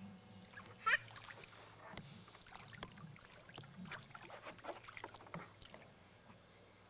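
Water sloshing and splashing in a plastic wading pool as a toddler wades through it, with a short, high, wavering squeal about a second in and scattered small knocks and splashes after.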